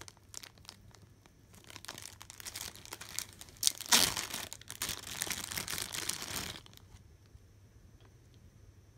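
Zip-top plastic bag crinkling and rustling as it is handled and pulled open at its zipper seal, loudest about four seconds in, then stopping about two seconds before the end.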